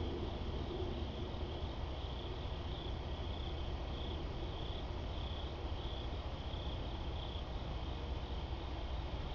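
Crickets chirping in a steady night chorus, swelling and fading about twice a second, over a steady low rumble.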